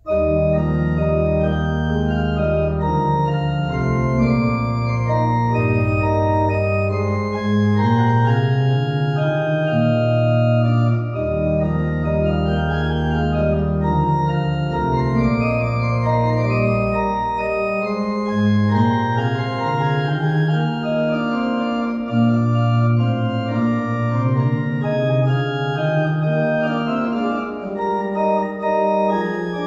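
Church pipe organ playing a hymn tune in sustained full chords, with deep bass notes coming and going.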